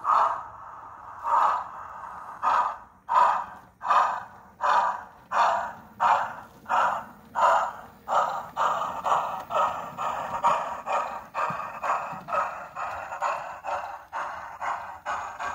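Model steam locomotive's DCC sound decoder playing steam exhaust chuffs through its small onboard speaker. The beats start about a second apart and quicken steadily to two or three a second as the locomotive gathers speed.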